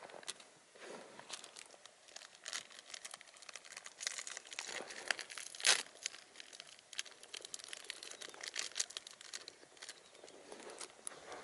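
Snack wrapper crinkling and crackling as it is handled by hand, a run of irregular crackles with one louder crackle about halfway through.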